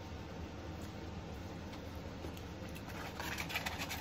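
Close-up chewing and mouth sounds of someone eating, with a cluster of small wet clicks in the last second, over a steady low hum.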